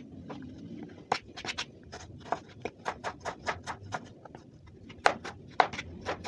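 Kitchen knife chopping tomatoes on a cutting board: a string of irregular sharp taps of the blade hitting the board, several a second, the loudest ones near the end.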